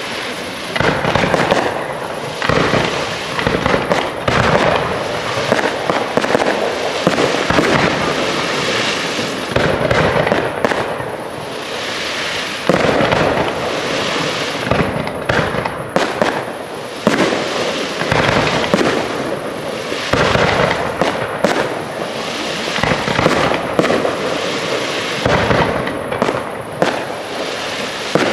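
Aerial fireworks display: shell bursts and bangs in quick, overlapping succession, with no pause.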